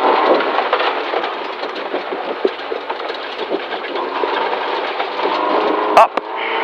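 Rally car driven hard on a gravel stage, heard from inside the cabin: the engine running steadily with gravel and stones clicking against the underbody, and one sharp knock about six seconds in.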